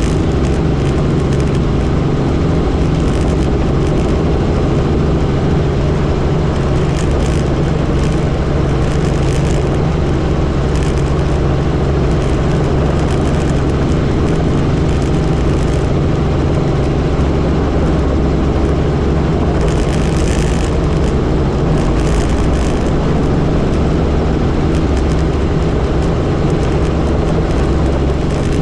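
Helicopter engine and rotors running in a loud, steady drone.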